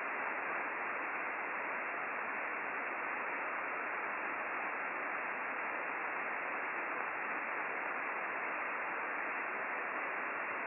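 Steady hiss of an Icom IC-9700 transceiver's receiver in upper sideband, tuned to the RS-44 satellite downlink with no station transmitting: empty-channel static from the radio's speaker.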